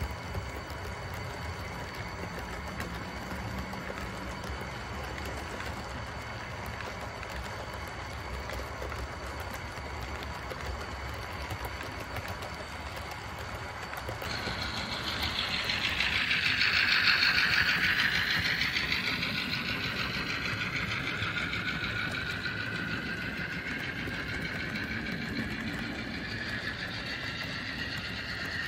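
Model freight train running past on its track, a steady rolling rattle of the wagons' wheels. About halfway through, a high-pitched squeal of several wavering tones sets in from the passing train. It is loudest a few seconds later, then carries on more quietly.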